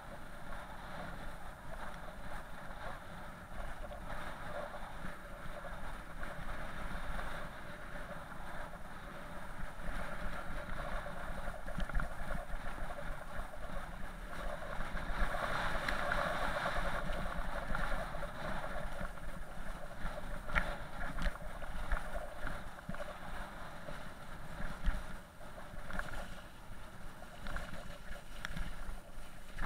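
Mountain bike rolling along a wet, muddy farm track: a steady rush of tyre noise on wet gravel and mud, with scattered clicks and knocks from the bike over bumps in the later part.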